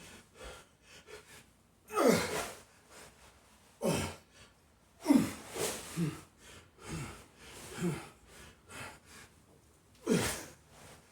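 A man breathing hard and grunting with exertion: about eight forceful, voiced exhales, each dropping in pitch, a second or two apart.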